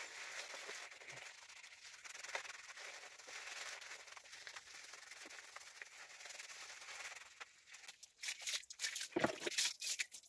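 Hands scrubbing shampoo lather into wet hair: a steady crackly, squishy hiss. From about eight seconds in come louder, sharp, irregular clicks and squelches close to the microphone.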